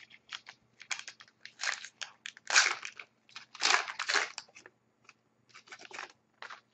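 A trading-card pack wrapper being torn open and crinkled by hand: a run of irregular crackles and rustles, strongest about two and a half and four seconds in.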